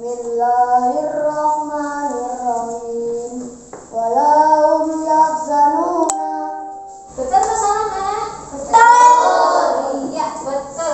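Children singing a song together, with long held notes.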